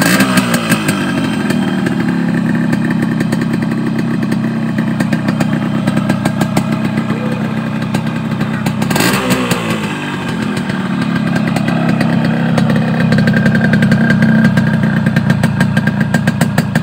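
Yamaha RX-S 115 cc two-stroke single-cylinder motorcycle engine idling, heard close to its chrome exhaust. The revs rise briefly and fall back twice, once at the start and once about nine seconds in.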